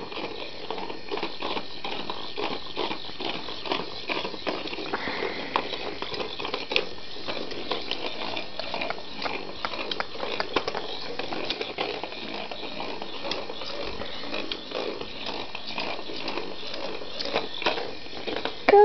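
Weasel Ball, a battery-powered motorised plastic toy ball, running and rolling around: a steady noisy whirr with frequent small clicks and rattles as it knocks along.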